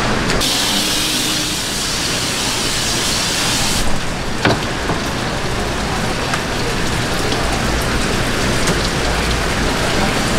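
Steady rushing hiss of running water, louder and brighter for the first few seconds, with a single sharp click about four and a half seconds in.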